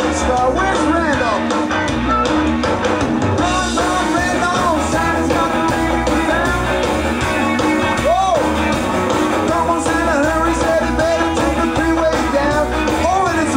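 Live band playing a rock song: a singer over guitar and a full backing.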